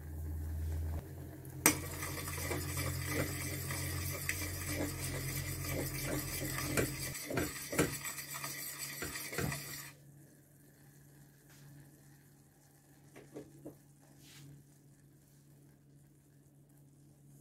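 A metal spoon stirring and knocking against the side of a stainless steel pot of hot milk, with several sharp clinks in a row toward the middle. Over the first part a steady hiss runs, starting with a click and cutting off suddenly a little over halfway through; after that only a few faint taps are heard.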